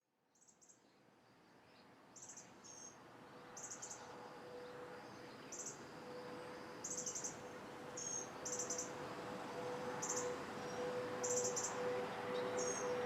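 Insects chirping outdoors in short, buzzy bursts about once a second. Under them a steady tone swells in from about five seconds in and keeps growing louder.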